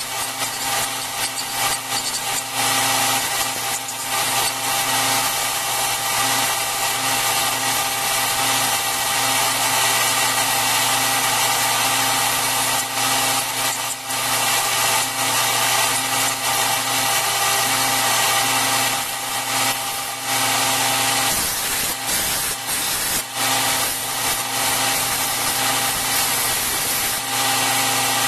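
Belt grinder running steadily with a steel tomahawk head, forged from a ball peen hammer, held against the moving abrasive belt, a constant motor hum under the rasp of the belt on the metal. The rasp dips and swells as the piece is moved across the belt.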